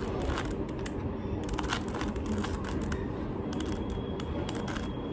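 Plastic clicks and clacks of a 3x3 Rubik's cube as its layers are turned by hand, coming irregularly.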